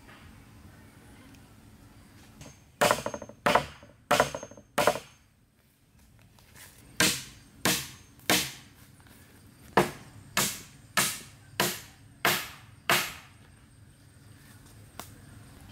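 A hatchet striking wood in sharp, evenly paced blows: four quick strikes, a short pause, then a run of nine more at about a blow and a half per second.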